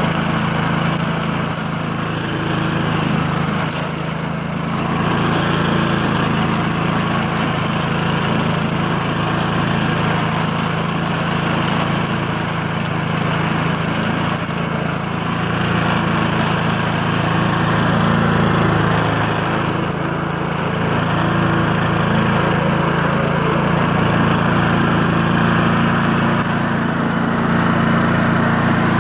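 Yard King twin-blade push mower with a four-stroke Honda-copy engine running at a steady speed while it mows grass.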